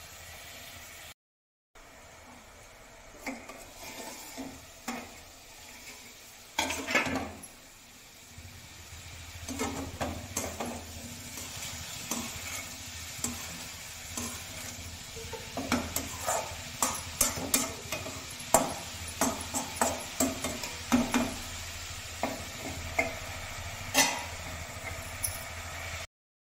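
Potato and cauliflower pieces sizzling in a kadhai, stirred with a spatula from about nine seconds in, which knocks and scrapes against the pan many times. A louder clank comes about seven seconds in.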